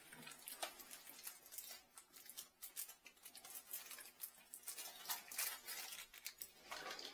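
Light, irregular clicks and rustles of a shower hose and its fittings being handled.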